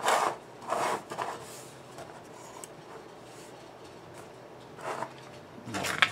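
Two thin metal subwoofer voice-coil formers handled and set down on a workbench: a few short knocks and rubs in the first second or so, then quiet, and more handling noise near the end.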